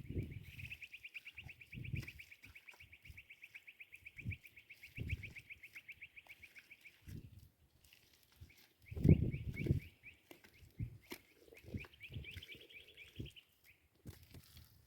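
A high, rapid chirping trill, held for several seconds, breaking off briefly, then running again, from a bird or insect. Under it come scattered dull low thuds, the loudest a cluster about nine seconds in.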